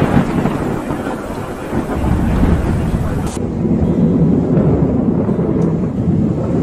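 Thunder rumbling after a nearby lightning strike, over a hiss of rain. About three and a half seconds in the sound cuts abruptly: the hiss drops away and a duller, deep rumble carries on.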